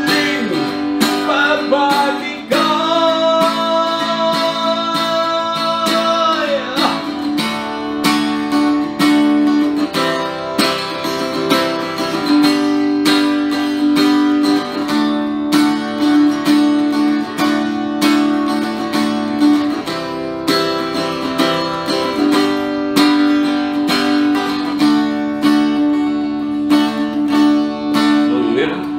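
A man singing while strumming a thin-bodied acoustic-electric guitar. About two seconds in he holds one long sung note for some four seconds and lets it slide down at its end, and the strummed chords carry on steadily under the song.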